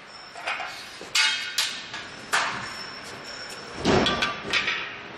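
Metal parts of a solar water heater's frame knocking and clanking together as they are handled, several sharp knocks with a light metallic ring.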